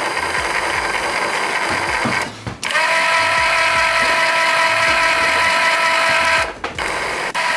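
12 V electric scissor jack's motor and screw drive running under the weight of a person standing on it. It makes a quieter run lowering, then after a short stop a louder run lifting with a steady whine, which cuts off about a second before the end. Lowering is much more silent than lifting.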